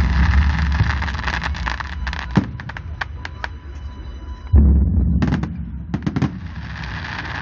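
Fireworks display: a deep boom at the start and another about four and a half seconds in, with rapid sharp crackling pops in between and again after the second boom.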